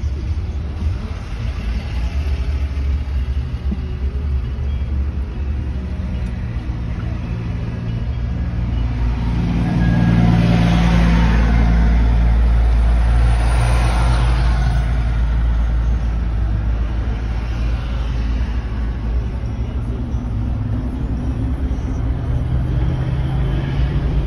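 Road noise heard from inside a moving car: a steady low rumble of engine and tyres. It grows louder for a few seconds in the middle, then settles back.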